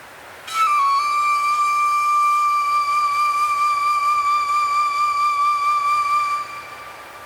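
A single long flute note over a faint, wind-like hiss. It enters about half a second in with a small slide down in pitch, is held with a light waver, and fades out near the end.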